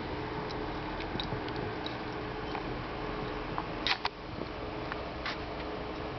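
Puppy biting and knocking about a wooden-handled bristle brush: scattered light clicks and taps, loudest in a quick pair about four seconds in and once more a second later, over a steady background hum.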